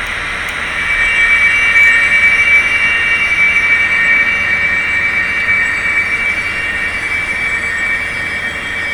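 Sound decoder of an N scale HXD1C electric locomotive model playing recorded locomotive sounds through its small speaker: a steady high-pitched whine over a hiss, a little louder from about a second in.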